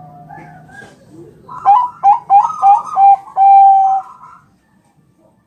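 Bangkok-strain zebra dove (perkutut) singing. After some faint cooing, it gives a loud run of about six quick clipped notes starting about a second and a half in, ending in one long held coo.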